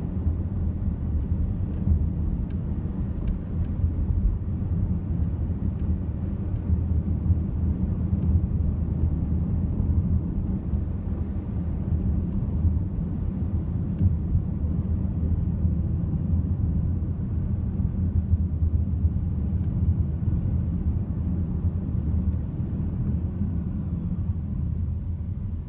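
Steady low rumble of road and engine noise inside a moving car's cabin, easing off right at the end.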